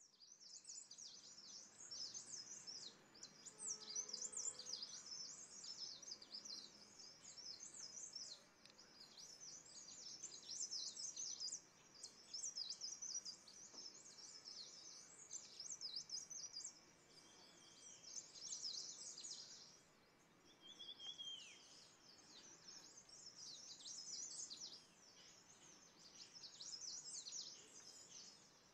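Small birds twittering and chirping in dense, high-pitched bursts of a few seconds with short breaks, with one downward-sliding call about 21 seconds in.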